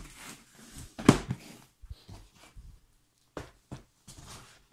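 Handling noise of a box being picked up and turned in the hands, with rustling, a sharp knock about a second in and a few short clicks later.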